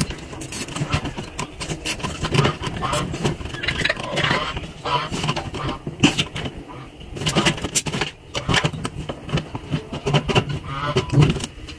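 Repeated clicks and scrapes of a metal tool and hands working on the plastic top panel of a washing machine.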